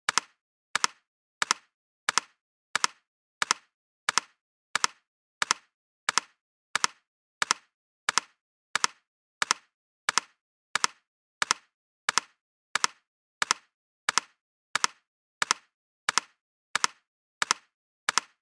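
A double-tap sound effect: two short, sharp taps in quick succession, repeated evenly about every 0.7 seconds.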